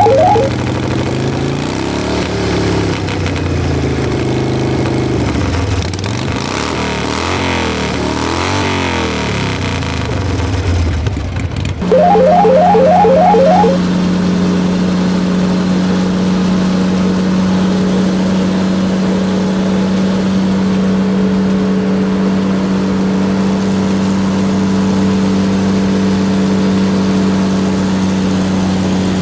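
Truck engine sound effect. It revs, rising and falling in pitch, for about twelve seconds. A quick run of short beeps then comes, the sound jumps louder, and it settles into a steady engine drone.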